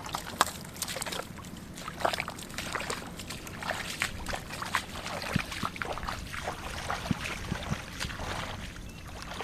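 Footsteps squelching and splashing through wet mud and shallow water, an irregular series of short sloshes and clicks.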